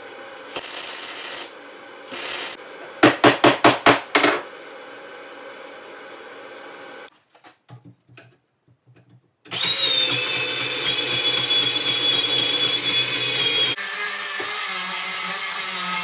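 Welding on steel front spindles: two short bursts, then a quick run of about six brief pulses. After a short quiet gap, an angle grinder starts with a steady high whine, and about two-thirds of the way through it bites into the steel and the sound turns rougher.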